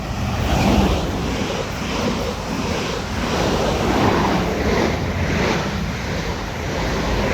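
Two coupled South Western Railway Class 444 electric units passing through the station, giving a loud, steady rush of wheel and air noise. Wind buffets the microphone.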